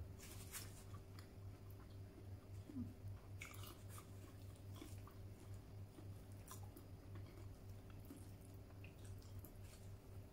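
Faint chewing of a mouthful of rice and cooked sweet potato leaves, with scattered short wet smacks and clicks from the mouth and fingers, over a low steady hum.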